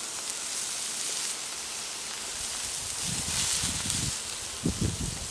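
Cheddar-topped beef burger patties sizzling steadily on a gas plancha's ground-steel plate, with a few dull thuds of the metal spatula handling them in the last two seconds.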